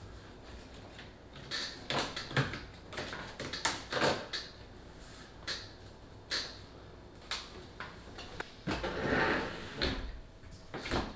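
Handling noise from fitting insulation trim pieces onto a dishwasher: a string of irregular knocks and clicks, with a longer scraping rustle about nine seconds in.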